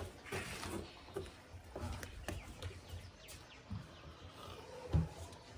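Faint scattered clicks and small handling noises as tea is sipped from cups, with a few faint bird chirps and a single dull thump about five seconds in.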